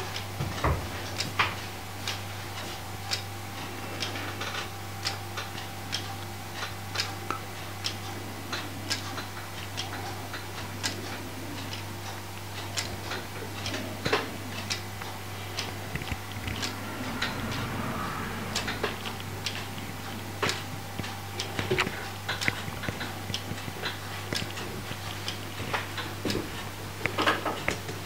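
Wooden escapement of a Wood Trick plywood pendulum wall clock ticking: the escape wheel and anchor give a steady run of sharp wooden ticks, some louder than others.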